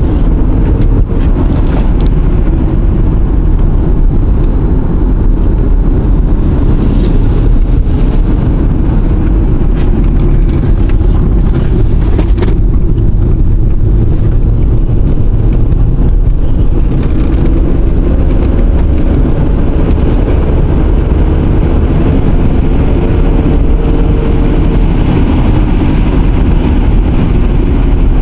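Steady, loud low rumble of road and engine noise inside a moving car, with a faint engine hum that wavers in pitch in the second half.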